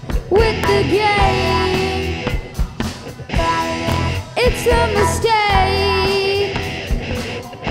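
Live rock band playing, with a girl singing lead over drums, electric guitar, bass and keyboard; she holds two long sung notes with vibrato, one near the start and one just past the middle.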